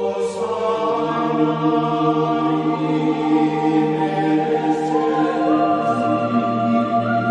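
Slow ambient background music of long held chords with chant-like choir voices, the notes changing every few seconds.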